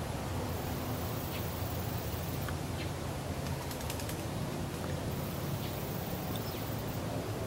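Outdoor ambience: a steady low background noise with a few faint, brief high bird chirps scattered through it.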